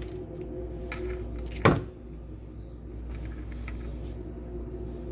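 Steady low hum of a running kitchen appliance or fan, with one sharp knock about a second and a half in.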